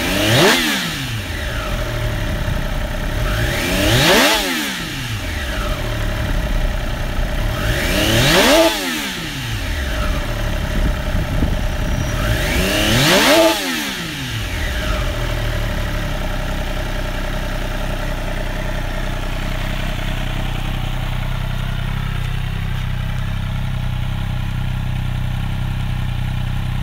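Triumph Daytona Moto2 765's three-cylinder engine, through an Arrow exhaust, free-revved in neutral. It is blipped four times about four seconds apart, each rev rising quickly and falling back to idle, then it settles into a steady idle.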